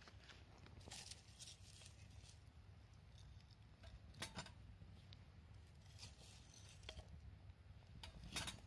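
Faint handling noise: scattered light clicks and rustles of small objects being moved, the sharpest about four seconds in and just before the end, over a low steady hum.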